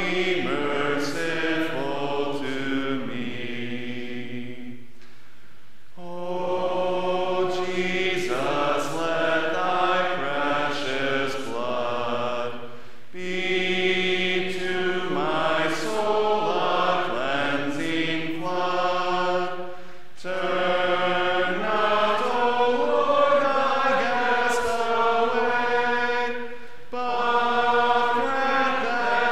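Unaccompanied congregational singing of the liturgy, in slow sustained phrases with short breaks for breath between them.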